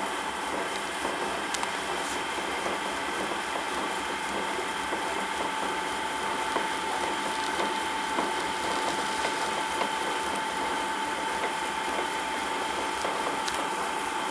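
Small lathe running steadily with a high whine while a center drill in the tailstock bores into the end of a spinning acetal plastic rod.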